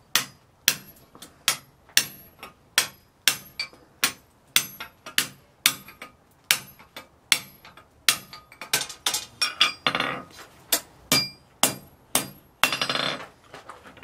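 Hand hammer striking a tapered steel drift on a steel anvil, driving it through a hot punched slot to widen it: sharp metallic blows at a steady two a second, turning quicker and irregular about halfway through. A brief metal rattle near the end.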